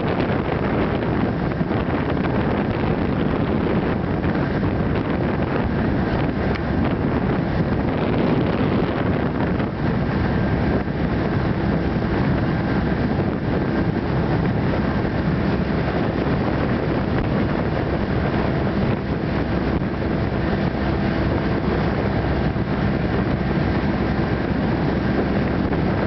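Fast motorboat running steadily at speed, with engine and rushing water blending into one dense noise and wind buffeting the microphone.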